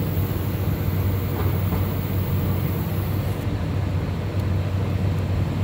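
Steady low mechanical hum under an even rushing noise, with a faint high hiss that stops about three and a half seconds in.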